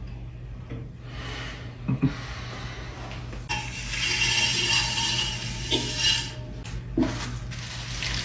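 A tool scraping wet clay slip off a spinning potter's wheel head, a rasping scrape that grows louder about three and a half seconds in and eases off after about six seconds, with a few light knocks of the tool on the metal.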